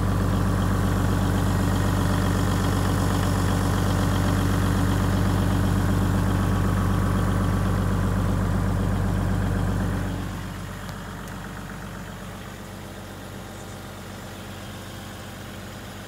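A Hino Liesse II's 1HD-FTE 4.2-litre straight-six turbodiesel idling steadily, heard close beside the exhaust and muffler under the bus. About ten seconds in the hum falls to a quieter level and carries on.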